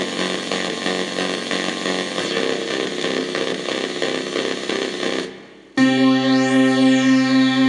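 Korg Kronos synthesizer playing synth bass presets from the VITA Synth Bass sound bank. A dense, buzzy held sound fades out about five seconds in. After a brief gap a new held bass note starts, with a resonant filter sweeping up and back down.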